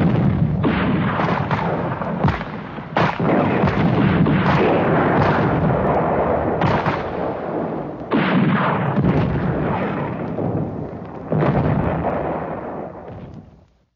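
Battle sound effects: a string of sudden explosions and gunshots, a new blast every second or two, each trailing off before the next, fading out near the end.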